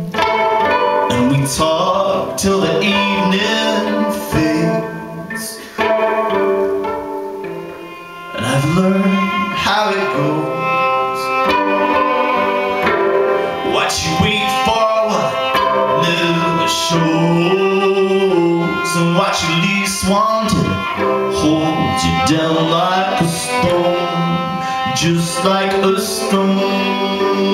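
Live music: a violin bowed through an instrumental passage over sustained low notes, the loudness dipping briefly about six and again about eight seconds in.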